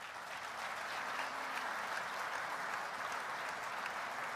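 Audience applauding steadily, fairly quiet.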